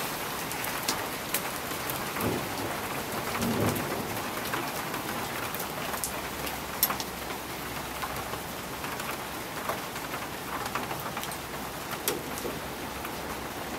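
Steady thunderstorm rain, with single drops ticking sharply close by, the loudest a little before halfway and again near the end.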